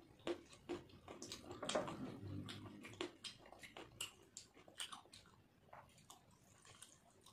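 Fingers mixing and squishing water-soaked rice (panta bhat) in a steel plate, with close chewing: irregular wet squelches and small clicks, busiest about two seconds in.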